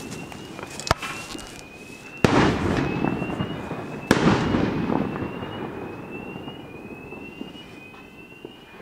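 Fireworks going off: a sharp crack about a second in, then two loud bangs about two and four seconds in, each fading away in a long echoing rumble. Behind them a faint short rising tone repeats about once a second, a fire alarm sounding.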